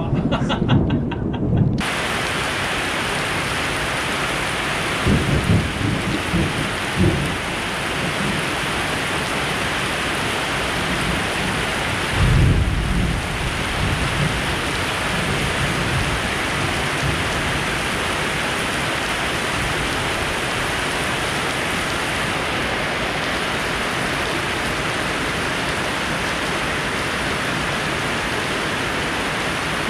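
Heavy rain pouring down in a thunderstorm, a dense steady hiss that starts suddenly about two seconds in, with low rolls of thunder about five seconds in and again around twelve seconds.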